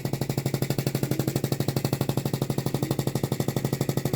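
Handheld chest percussion device (a massager-like airway-clearance tool) tapping rapidly on a patient's chest to loosen mucus so he can cough. It makes a fast, even rattle of about twenty taps a second over a steady low hum.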